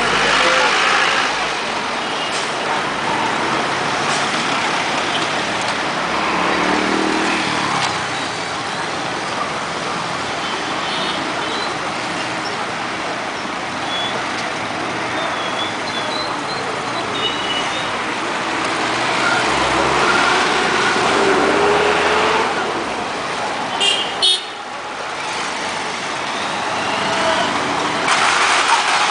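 Busy street traffic of motorcycles and cars passing, a steady engine and tyre noise with short horn toots now and then. A couple of sharp knocks sound about three-quarters of the way through.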